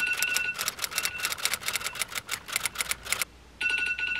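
Phone alarm going off: a rapid clicking pattern over a steady high beep. It breaks off for a moment near the end, then starts again.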